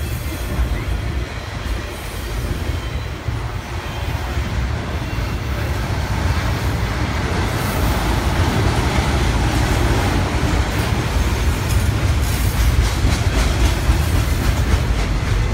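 Cars of a BNSF intermodal freight train, trailers on flatcars and double-stack containers, rolling past with a steady heavy rumble and wheel clatter, growing louder about halfway through.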